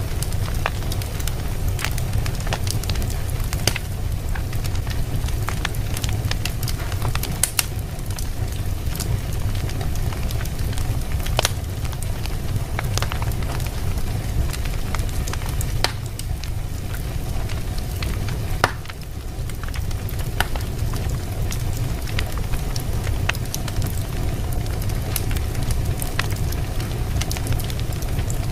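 Fire burning in a fireplace: a steady low rumble with frequent irregular crackles and pops, one sharper pop about two thirds of the way in.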